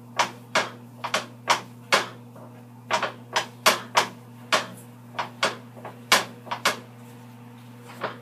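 Plastic spoon chopping raw ground beef in a skillet, its edge knocking against the pan bottom in sharp, irregular strokes about two to three a second, over a steady low hum.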